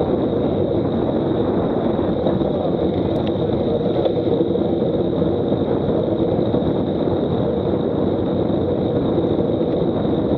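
Steady rushing wind noise on the microphone of a camera mounted on a road bicycle riding at speed, mixed with tyre noise on the asphalt. A faint steady high tone runs underneath.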